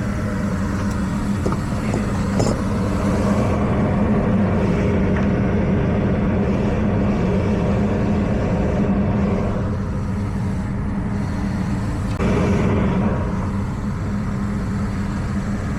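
Gas furnace running just after lighting: burners firing and the draft inducer motor humming steadily, on a newly replaced gas valve whose pressure is being set. The level eases off slightly about ten seconds in and comes back up a couple of seconds later.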